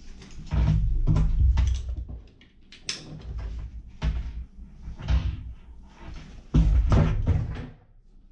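Handling noise from an Aqua Lung Rogue BCD on a wooden tabletop: nylon straps and jacket fabric rustling, a sharp click about three seconds in, and heavy thumps and knocks as the jacket is moved and laid down, loudest near the start and again late on.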